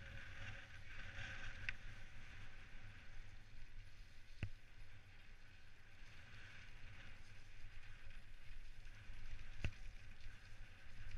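Specialized Stumpjumper mountain bike riding fast down a gravel singletrack: a steady rumble of tyres on dirt and wind over the helmet-camera microphone, with two sharp knocks from the bike about five seconds apart.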